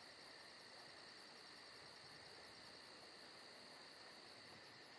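Faint, steady chirping of crickets in a fast, even pulse, the only sound in an otherwise near-silent pause.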